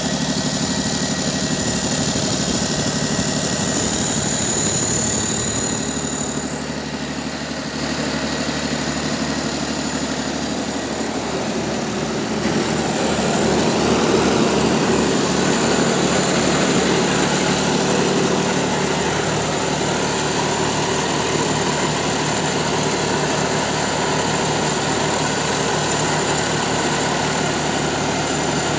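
Kirloskar XL90 diesel engine of a 125 kVA generator set running steadily. It gets somewhat louder about halfway through.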